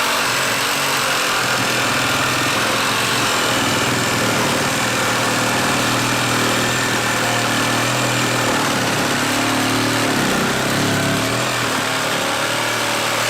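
HART 20V cordless reciprocating saw running steadily at full speed, its blade sawing through a wooden 4x4.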